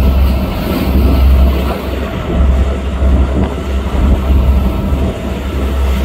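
Motorboat underway on a choppy sea: steady engine noise and rushing water, with a low rumble that swells and falls every second or so.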